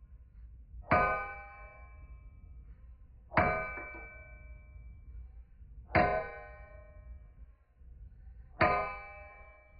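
Forging hammer striking steel on an anvil four times, about every two and a half seconds, each blow ringing out and dying away within about a second.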